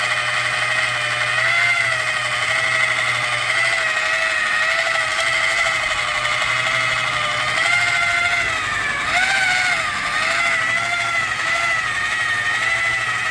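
Electric buffing polisher running on its lowest speed setting with compound on a foam pad, working polish into a plastic fog light lens. A steady motor whine whose pitch wavers and dips slightly as the pad is pressed and moved, most noticeably a little past halfway.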